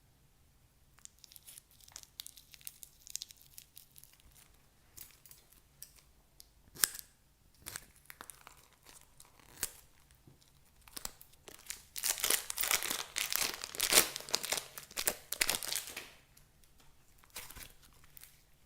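Crinkling and crackling handling noise. Scattered small crackles come first, then a dense stretch of crinkling and tearing-like crackle about twelve seconds in that lasts some four seconds.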